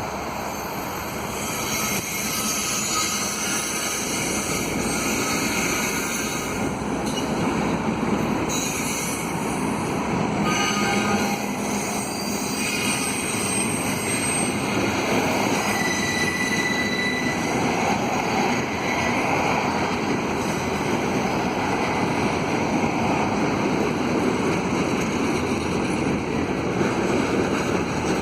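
Double-stack container freight train rolling steadily around a curve, its steel wheels squealing against the rails in high-pitched whines that come and go over the rumble of the cars: the flanges binding and straining on the curve.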